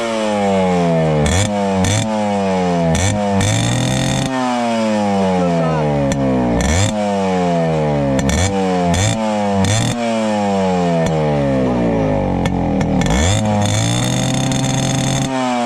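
Yamaha RX100's two-stroke single-cylinder engine on its stock exhaust, revved hard again and again. Each throttle blip climbs quickly and falls back, more than a dozen times.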